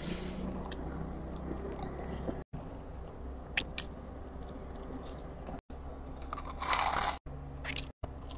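Close-up sounds of a person biting and chewing crispy fried calamares and chicharon (pork rinds), in short clips cut together. The loudest crunch comes a little past halfway.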